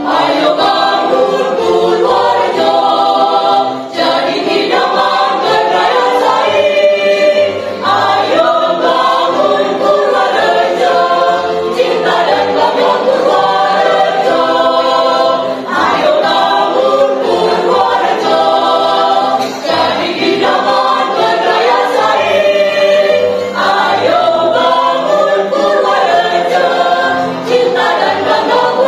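Mixed choir of men's and women's voices singing a march, with short breaks between phrases every few seconds.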